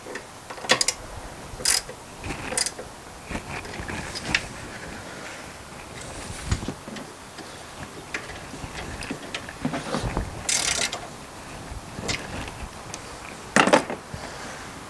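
Ratchet wrench clicking as the bolts on a steel seat swivel base are tightened down, with scattered metal clanks and knocks as the swivel plate is turned and handled.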